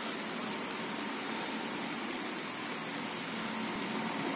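Steady rain falling, an even hiss with no distinct drops or breaks.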